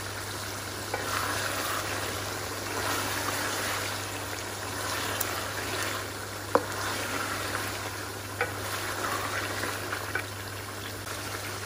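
Chicken and potato curry sizzling gently in an aluminium pot as it is fried on low heat and stirred with a wooden spoon, with a few light clicks of the spoon against the pan.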